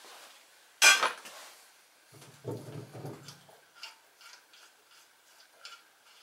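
Metal clinks and knocks from loosening the bolts on the snow thrower engine's mount: a sharp clank about a second in, a low rattle from about two to three and a half seconds in, then a run of small irregular clicks.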